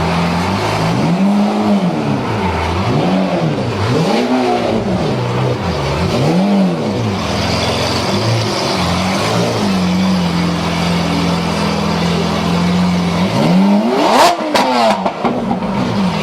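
Lamborghini engine revved in about five quick blips, each rising and falling back within a second or so, then settling to a steady idle. Near the end comes one sharp rev with a few sharp cracks from the exhaust.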